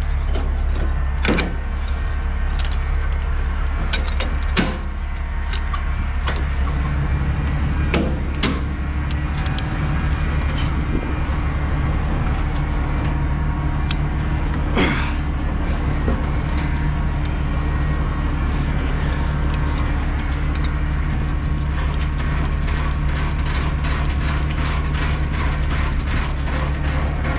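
Semi truck's diesel engine idling steadily, with several sharp metal clanks in the first half. Near the end, a fast, even run of ratcheting clicks, typical of a trailer's landing gear being cranked up after coupling.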